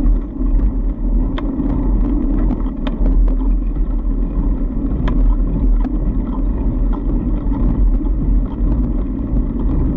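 Fat bike riding along a packed-snow trail: a steady low rumble of tyre and wind noise on the camera microphone, with scattered light clicks and rattles.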